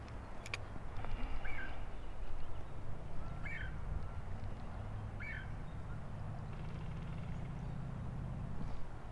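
KastKing Valiant Eagle 1000 spinning reel being cranked, a steady low whirr of the gears from about three seconds in that stops just before the end. A bird chirps briefly three times over it.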